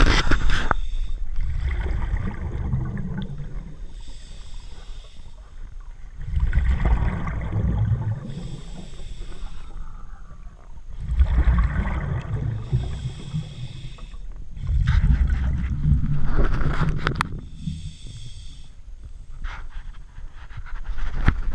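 A scuba diver breathing through a regulator underwater: a short hissing inhale, then a longer low rumble of exhaled bubbles, repeating about every four to five seconds.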